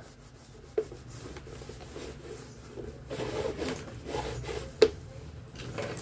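A cloth rubbing and wiping over the fan's parts to clean off dirt, as an irregular scrubbing noise. There is a small knock about a second in and a sharper one near five seconds in.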